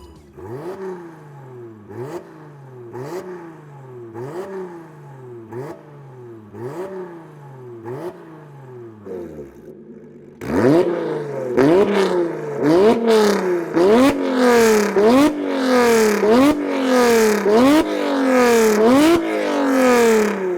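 Lotus Evora S 3.5-litre V6 through a titanium exhaust, revved in repeated short blips about once a second, each rising sharply and then falling away. About halfway through, the blips turn much louder, with sharp pops and crackles as the revs drop.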